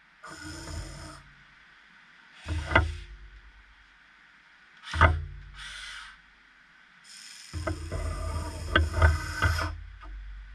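Huina 1580 metal RC excavator's electric motors whirring in four short bursts as its arm and bucket are worked, with sharp metallic knocks; the last burst, about seven seconds in, is the longest and loudest.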